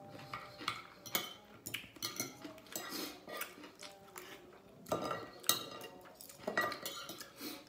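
Spoon and fork clinking and scraping on a ceramic plate in a series of irregular short clicks, loudest about five seconds in.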